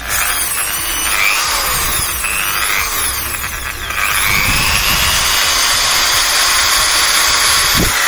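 Corded 650 W iBELL TD13-100 impact drill running free with nothing in its keyless chuck, the motor whining. The pitch rises and falls as the trigger is worked, then holds steady from about four seconds in.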